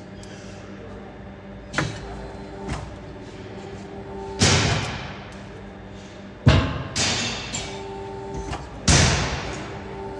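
Factory machinery: heavy thuds and three loud hissing bursts that each die away within about a second, a few seconds apart, over a steady hum.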